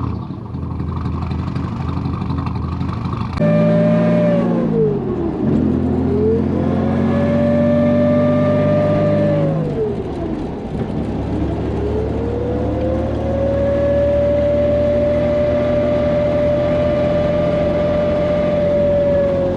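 The failing 35-year-old Garrett T3 turbocharger on a 1986 Nissan 300ZX's turbo V6 howls like a siren over the running engine. About three seconds in, a loud whine starts. It sinks and climbs back twice as the revs drop and rise, then holds high through most of the second half. The siren whine is the sign of the worn-out turbo failing.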